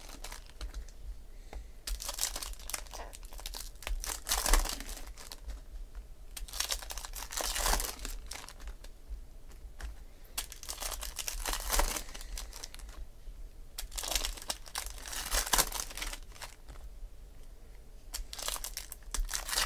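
Foil trading-card pack wrapper torn open and crinkled, then cards slid, shuffled and set down in stacks, heard as short rustling bursts every couple of seconds.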